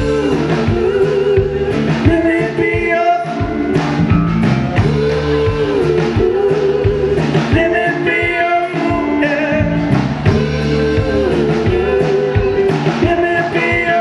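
Live blues-rock band playing: electric guitars, bass guitar, drums and keyboards together, with regular drum hits under bending melodic lines.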